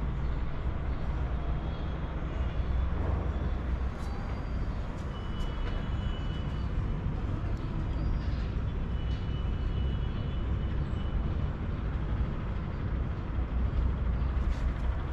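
Steady outdoor background noise with a strong low rumble and a few faint high tones.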